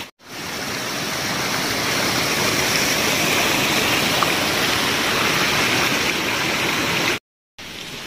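Small rocky forest stream rushing over stones, a loud steady flow of water. It cuts out briefly near the end.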